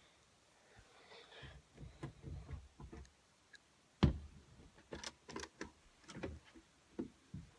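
Faint handling noise of a phone being moved about, rustling at first, then a sharp knock about four seconds in followed by a run of quieter clicks and knocks.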